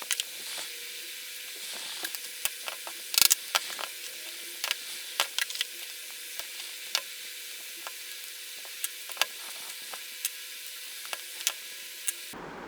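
Scattered small metallic clicks and clinks as the four nuts on a 250 W DC gear motor's gearbox cover are undone, over a steady hiss. A brief louder cluster of clicks comes about three seconds in.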